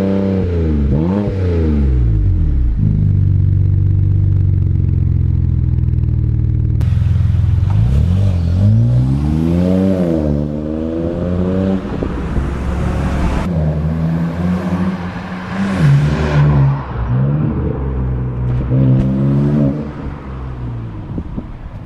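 BMW E93 335i's 3.0-litre turbocharged straight-six running through an aftermarket full exhaust with twin-pipe tips. It is revved in two quick blips, settles into a steady low drone, then rises in pitch under acceleration and drops off about ten seconds in. It carries on with several more rises and falls and a final short blip near the end.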